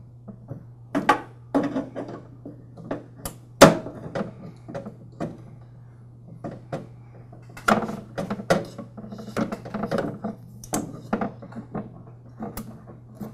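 Small clicks, taps and knocks of metal hose clamps being squeezed with pliers and refitted on a snowblower's rubber fuel line at the inline fuel filter. The sharpest snap comes about three and a half seconds in, with a busier run of clicks from about halfway on.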